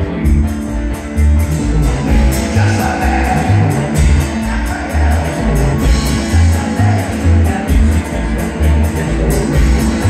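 Live band playing a fast, driving song on banjo, upright bass and electric guitar, with pulsing bass notes, a steady beat and a man singing.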